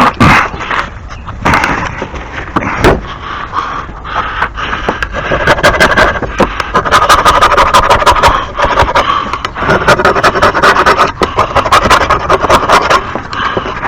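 A few knocks, then from about five seconds in a fast run of scraping strokes, many a second: dried grass and debris being scraped off a lawn mower deck.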